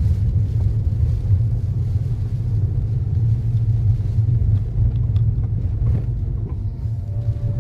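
Steady low road rumble inside a moving Toyota car's cabin, tyre and road noise at driving speed.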